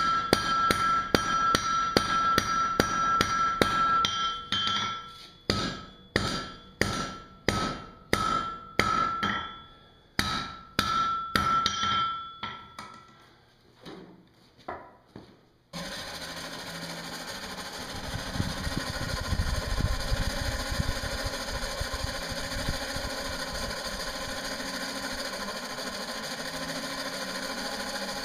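Sledgehammer and hand hammer striking hot iron on an anvil, the anvil ringing: fast, evenly spaced blows at first, then slower single blows that die away about thirteen seconds in. About sixteen seconds in, a steady whirring hiss suddenly replaces them.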